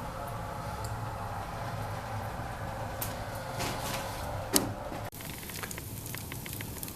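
Wood fire burning hard in a cast-iron fireplace firebox under strong draft: a steady rushing noise with crackles and one sharp crack about four and a half seconds in. It cuts off abruptly about five seconds in, leaving a quieter fire with light crackling.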